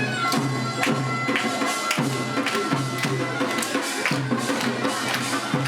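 A pungmul folk band playing procession music: a taepyeongso (Korean shawm) holding a high reedy line over steady drum beats about twice a second and clanging small gongs. It starts suddenly right at the beginning.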